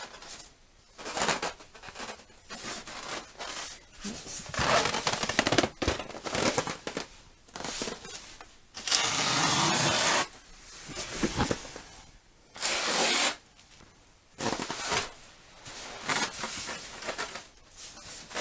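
Packaging being handled and pulled away from a boxed sewing machine: irregular rustling, rubbing and scraping noises, the longest lasting about a second and a half near the middle.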